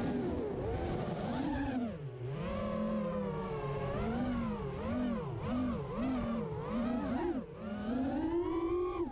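Racing quadcopter's brushless motors and propellers whining, the pitch swooping up and down about once a second as the throttle is pumped during freestyle flying, heard from the onboard camera. Near the end the whine climbs in one long rise.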